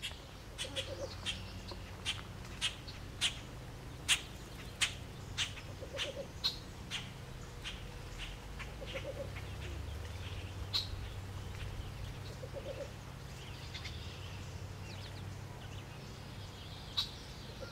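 Least bittern singing: a soft, low cooing of a few quick notes, given five times a few seconds apart. Sharp clicking notes, loud and frequent in the first seven seconds, and higher bird song over a low steady hum are heard with it.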